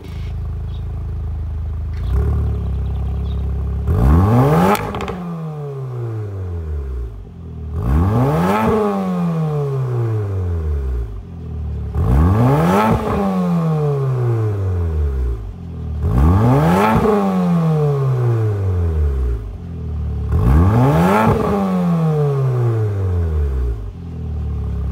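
Porsche Macan 2.0T's turbocharged four-cylinder breathing through an Fi Exhaust valvetronic cat-back with a catless downpipe, idling and then revved five times while parked. Each rev rises sharply in pitch and falls back to idle, about every four seconds.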